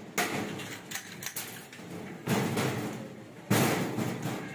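Thin galvanized steel sheet on a workbench being worked by hand: about five sudden scrapes and knocks of the metal, each trailing off into a rattle over about a second.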